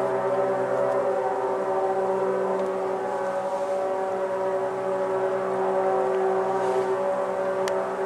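Several ship horns sounding together in long, steady, overlapping blasts of different pitches.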